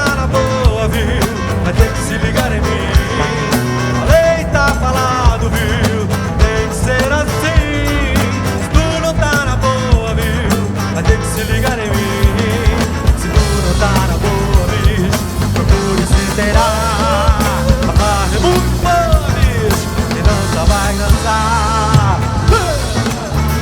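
Brazilian soul-funk song playing: drums keep a steady beat under bass, with a wavering melodic lead line on top.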